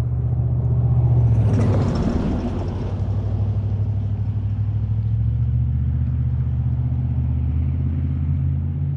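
A motor vehicle's engine running steadily with a low rumble, with a louder passing swell of noise about a second or two in.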